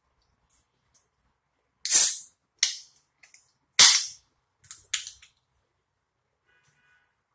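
A can of 7UP being opened: several sharp cracks of the pull-tab, each followed by a short fizzing hiss of escaping carbonation, the loudest about two seconds and four seconds in.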